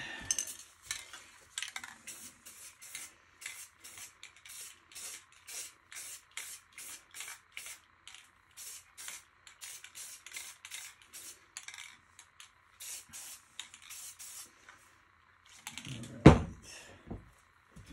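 Aerosol spray-paint can sprayed in quick short bursts of hiss, about two a second. A single loud knock comes near the end.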